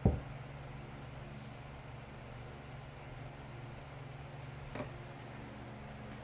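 A small bell on a cat toy jingling now and then as a kitten plays with it, with a sharp thump right at the start and a lighter click near five seconds in. A steady low hum runs underneath.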